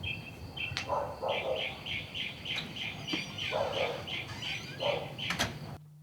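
A bird calling in a quick run of evenly repeated high chirps, about three a second, with a few lower, rougher sounds between them. Everything cuts off suddenly near the end, leaving a low steady hum.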